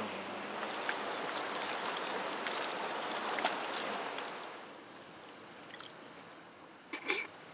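River water rushing steadily, with a few light clicks over it. About four and a half seconds in the rush cuts off, leaving only a low background with a couple of faint ticks near the end.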